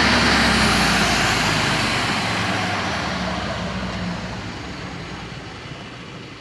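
Reconditioned Hamworthy V 250 main air compressor being stopped and running down, its mechanical noise and a high air hiss fading steadily away.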